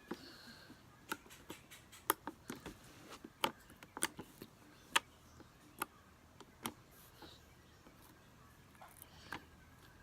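Clicky slime being squeezed and worked in the hands, giving sharp, irregular clicks a few times a second. The clicks thin out over the last few seconds.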